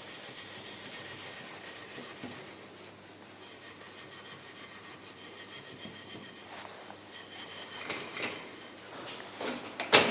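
Wire wool rubbing back and forth over a soldered copper pipe to clean it after the flux has been wiped off, a continuous scratchy scrubbing that grows louder in the last couple of seconds.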